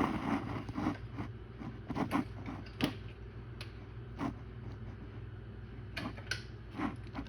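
Powered window blinds moving on their motor: a steady low hum with irregular clicks and creaks. The blinds squeak, which the owner hopes to cure by lubricating them.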